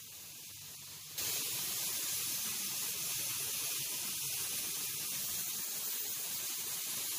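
R32 refrigerant hissing out of an air conditioner's service valve as the system is vented. A fainter hiss jumps to a loud, steady hiss about a second in.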